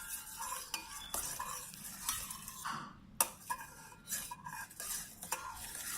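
A teaspoon stirring borax into water in a bowl to dissolve it, scraping and clinking against the bowl in irregular strokes, with one sharp clink about three seconds in.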